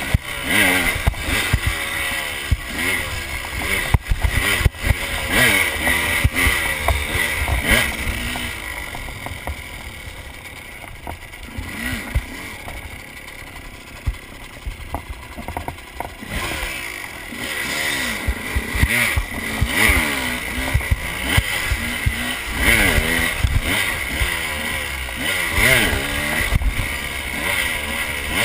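KTM enduro motorcycle engine being ridden, its pitch rising and falling with the throttle. It eases off for several seconds midway, then picks up again. A few sharp knocks and wind noise on the microphone are heard along with it.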